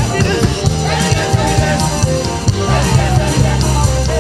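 Live praise band with several singers on microphones, performing an upbeat song over drums and a low bass line.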